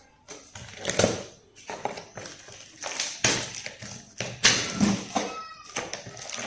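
Unboxing a new cooking pot: irregular knocks and taps as the box and pot are handled, with packaging rustle between them and a short ringing tone near the end.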